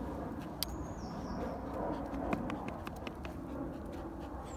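Outdoor ambience: a steady low rumble, with one short high chirp about half a second in and a few faint ticks a little later.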